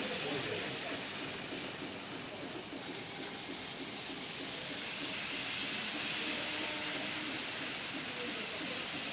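Model trains running on a layout: a steady rolling whirr and hiss, with indistinct voices in the background.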